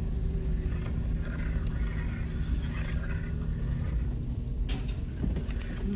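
Car engine running steadily with low road rumble.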